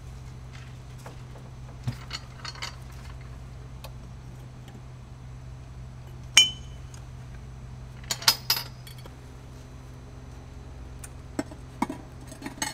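Metal tools clinking against the steel frame, door and latch of a homemade electric furnace as it is opened and worked, in scattered sharp clinks. One loud ringing clink comes about six seconds in, and a cluster follows around eight seconds. A steady low hum runs underneath.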